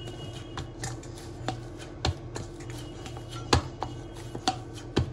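Whole-wheat puri dough being kneaded by hand in a stainless steel bowl: soft pressing with irregular knocks of the dough and hand against the steel, with three louder thumps about two, three and a half, and five seconds in.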